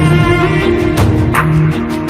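Instrumental music with held notes that change pitch every half second or so, and no singing.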